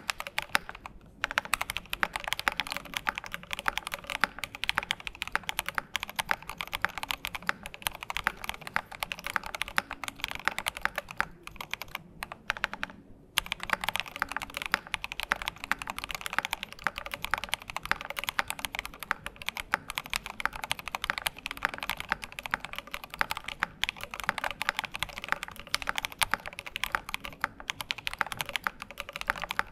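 Fast typing on a Class80 custom mechanical keyboard: a continuous stream of quick keystroke clicks, with short pauses about a second in and again around twelve to thirteen seconds in.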